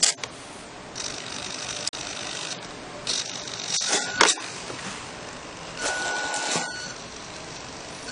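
Remote-control model truck's small electric drive motor and gears whirring as it runs, growing louder in a few short spells.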